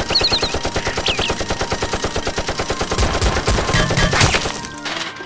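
Rapid automatic gunfire sound effect, a steady stream of shots at roughly ten a second, with heavier, louder shots around three to four seconds in.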